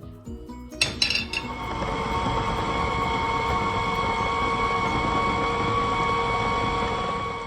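Electric kitchen blender motor running steadily, a few clicks as it starts, then cutting off near the end.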